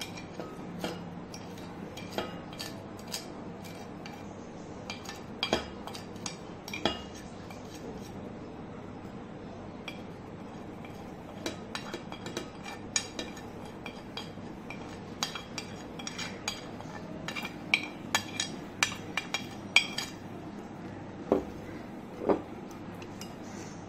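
A spoon clinking and scraping against a ceramic plate and bowl while dry ingredients are tipped in and stirred into warm water to dissolve the yeast. The clicks are scattered and get busier in the second half, with two louder knocks near the end.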